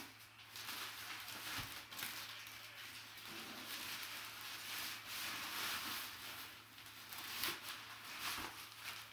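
Crumpled brown kraft packing paper rustling and crinkling as it is handled and pulled out of a cardboard box, in irregular bursts with a louder crackle near the end.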